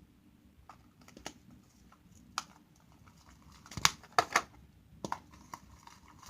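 Homemade glitter-glue slime being handled and squished, making scattered sticky clicks and small pops, with a quick cluster of louder ones about four seconds in.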